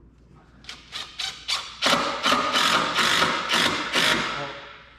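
Cordless impact driver, first in a few short bursts, then hammering steadily for about two seconds before winding down, driving a fitting on a sprayer's plumbing manifold.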